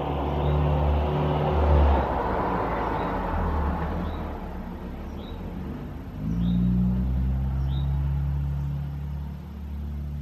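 A motor vehicle's engine running with a low rumble, rising in pitch and level again about six seconds in.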